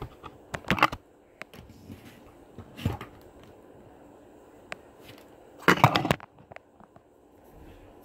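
Hampton Bay Littleton 42-inch ceiling fan running with a low steady hum. Three loud, short bursts of noise break over it, about a second in, about three seconds in, and a longer, louder one about six seconds in.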